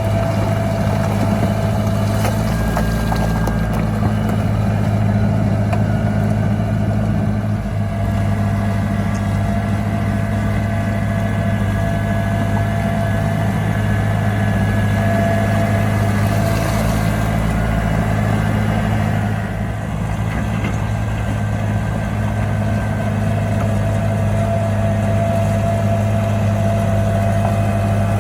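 Heavy diesel engine of a bulldozer or dump truck running steadily: a deep, continuous drone with a faint steady whine above it.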